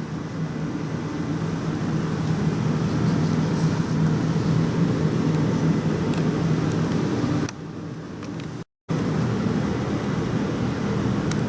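Steady low mechanical hum, like a motor or fan running, which drops in level about seven and a half seconds in and cuts out completely for a moment about a second later.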